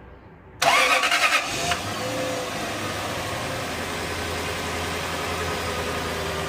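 Lexus 430's 4.3-litre V8 cranked by a used replacement starter and catching about half a second in, with a loud burst for about a second as it fires, then settling into a steady idle. The clean start shows the surplus starter works.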